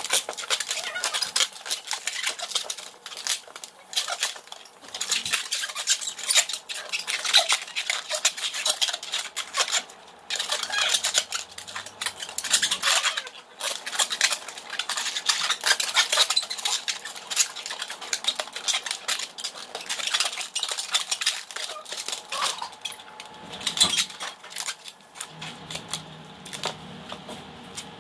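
Latex twisting balloon squeaking and rubbing as it is twisted and squeezed into a balloon dog: a dense run of short squeaks and crackles with brief pauses.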